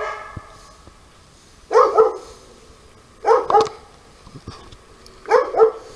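A dog barking: one bark at the start, then three quick double barks, about one every one and a half to two seconds.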